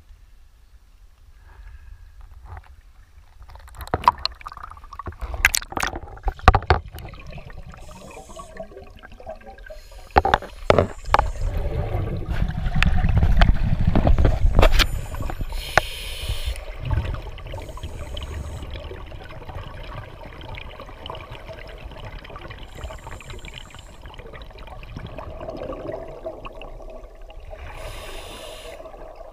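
Water sloshing and gurgling around a scuba diver's camera as it goes under, with a few sharp knocks early and a low rumble partway through. Short hissing bursts of the diver's exhaled regulator bubbles recur every few seconds.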